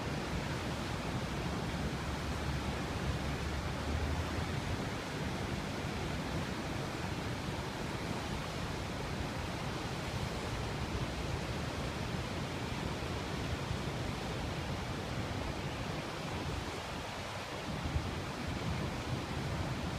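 Steady rushing roar of the Niagara River rapids and Horseshoe Falls, a continuous wash of water noise, with an uneven low rumble of wind on the microphone underneath.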